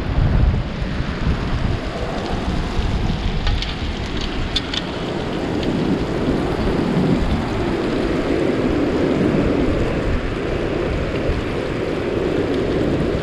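Chicken pieces frying in hot oil in a cast-iron Dutch oven: a steady sizzle and bubbling with a few small pops. Wind buffets the microphone with a low rumble, and surf runs underneath.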